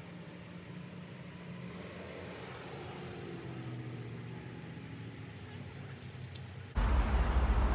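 Parking-lot traffic: a low steady engine hum that slowly swells as a vehicle passes. About a second before the end, a sudden, much louder low rumble cuts in.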